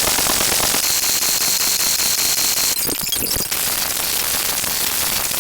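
Loud, steady static hiss with a faint high whine through its first half and a short crackly patch about three seconds in.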